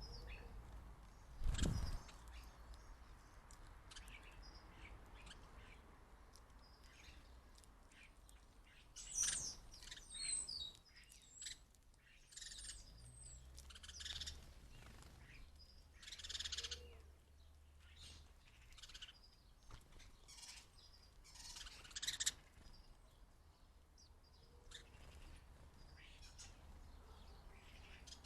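Small garden birds at a feeder chirping in short, scattered calls, with a single thump about a second and a half in.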